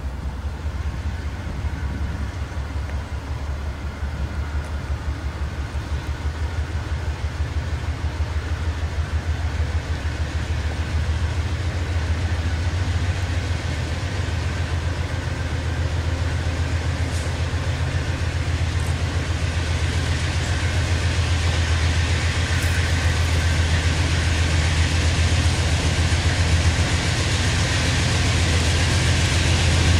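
CSX diesel freight locomotive approaching under power: a steady low engine rumble growing louder as it nears, with a higher hiss building up over the last ten seconds.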